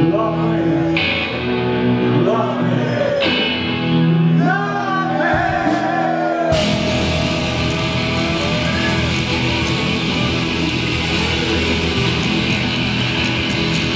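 Live rockabilly band playing: a man singing over upright bass, electric guitar and drums. About six and a half seconds in, the singing stops and the band plays on, with cymbals louder.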